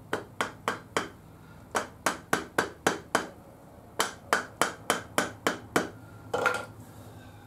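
Plastic hammer tapping a new dust seal down into the top of a Honda CB750F2 front fork slider, working around it: about twenty light, quick taps in three runs of three to four a second, with short pauses between.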